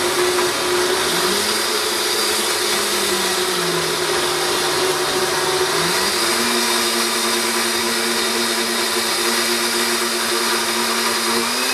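K-Tec Champ HP blender running steadily, blending a thick frozen-berry and spinach smoothie. The motor's pitch sags for a few seconds, then rises and holds steady about six seconds in.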